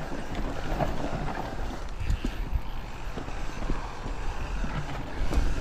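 Mountain bike riding down a rough dirt singletrack: tyres rolling over dirt, roots and rocks, with a steady low rumble and frequent knocks and rattles from the bike.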